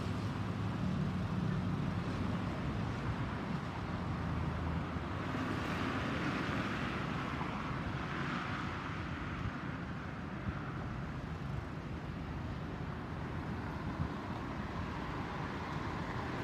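Distant jet noise of an Airbus A320neo's CFM LEAP-1A turbofans passing overhead: a steady, broad rush that swells about a third of the way in and slowly eases off.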